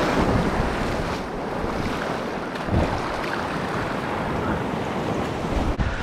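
Ocean surf surging and foaming over a shallow reef, with wind rumbling on the microphone.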